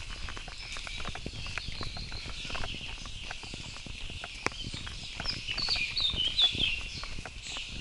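Running footsteps knocking on the planks of a wooden boardwalk in quick, uneven succession. A bird chirps several times in short, quick notes from about five seconds in.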